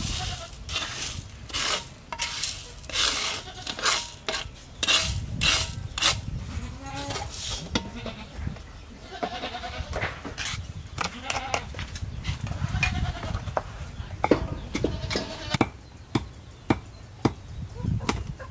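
Coarse salt scraped and shovelled out of a metal wok with a plastic scoop in rasping sweeps, then a run of sharp knocks and clicks near the end. Farm animals call in the background.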